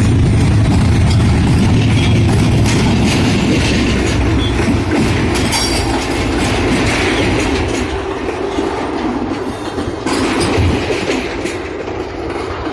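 Freight train cars rolling past, wheels clattering over the rail joints with some squeal. The low rumble of the diesel locomotives fades away over the first few seconds.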